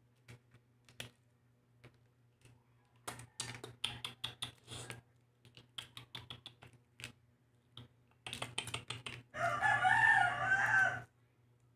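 Boiled egg shell crackling and clicking in small bursts as it is peeled by hand. Near the end a rooster crows once, a wavering call of nearly two seconds and the loudest sound here.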